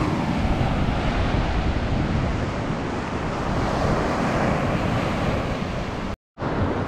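Surf breaking and washing up a sandy beach, with wind buffeting the microphone; the sound cuts out for a moment near the end.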